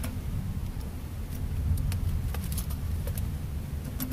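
A low, uneven rumble, with scattered light clicks and taps as the plastic palm-rest and keyboard case of an Asus laptop is handled and turned over.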